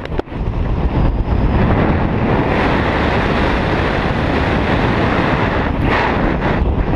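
Loud, steady rush of wind buffeting a body-mounted camera's microphone at wingsuit flying speed.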